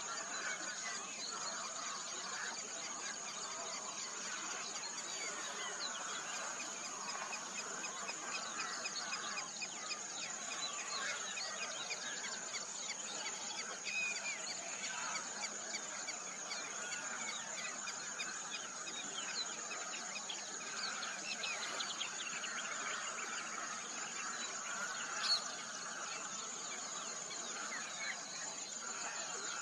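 Many birds chirping and chattering at once over a steady high-pitched insect drone, with one sharper chirp near the end.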